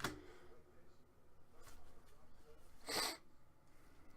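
Quiet room with a single short sniff about three seconds in.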